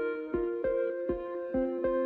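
Background music: a plucked string instrument playing chords at a steady pace, about two a second.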